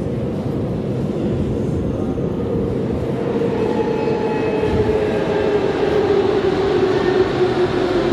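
81-717/714.5A metro train coming in through the tunnel toward the platform. A steady rumble grows slightly louder, carrying a whine that slowly falls in pitch as the train slows on its approach.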